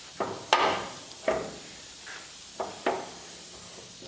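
Workshop clunks of metal parts being handled: about five sharp knocks, the loudest about half a second in, some with a brief ring.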